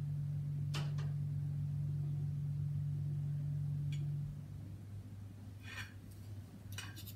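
A steady low machine hum, like an appliance or motor running in a room; its higher of two tones cuts off a little over halfway through, leaving a weaker hum. A few faint clicks and knocks come through, one about a second in and a cluster near the end.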